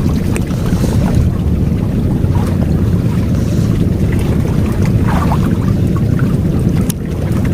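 Strong wind buffeting the microphone in a steady low rumble over the wash of big sea waves.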